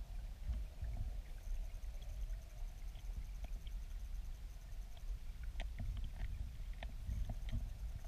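Underwater rumble of flowing river water below a small weir, a steady low muffled churn, with scattered faint clicks and ticks throughout.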